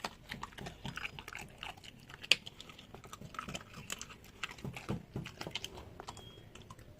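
A dog eating: quick, irregular clicking and crunching of chewing, with one sharp click a little over two seconds in.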